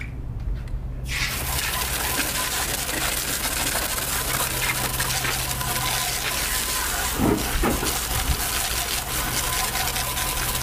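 Garden-hose spray nozzle turned on about a second in, a steady hiss of water jetting onto a car wheel and tyre, rinsing off the wheel cleaner.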